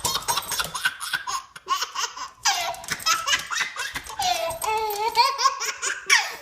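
A baby laughing hard in a long, unbroken run of high-pitched laughs.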